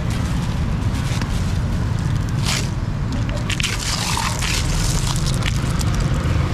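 Outdoor street ambience: a steady low rumble with scattered scrapes and clicks over it.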